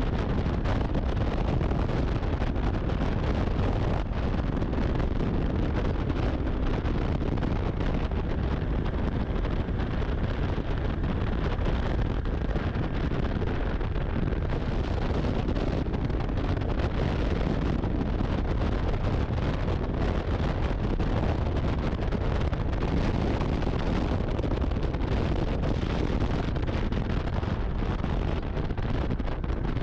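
Snowmobile running steadily, mixed with wind rushing over the microphone.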